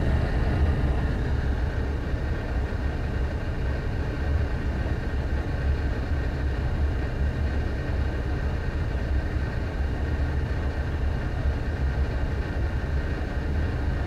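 Natural draft gas furnace running with its burners lit: a steady low rumble with a faint constant whine above it.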